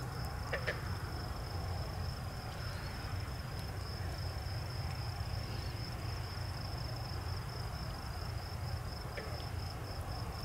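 Steady high-pitched trill of night insects in chorus, over a low steady rumble, with a couple of faint ticks.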